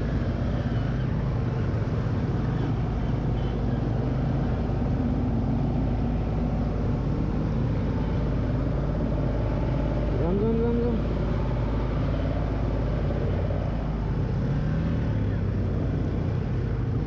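Motorcycle engine running at low speed while the bike wades through floodwater, a steady low hum mixed with water noise. About ten seconds in, a brief tone rises and then holds.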